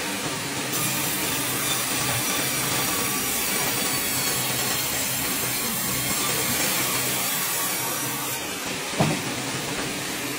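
Horizontal band sawmill running steadily with a low motor hum, its log carriage travelling along its track as the blade saws a pine log. A single sharp clank about nine seconds in.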